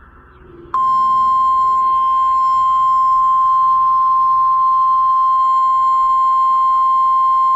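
NOAA Weather Radio 1050 Hz warning alarm tone: a single steady high tone that comes on suddenly about a second in and holds unbroken. It signals that a warning broadcast is about to follow.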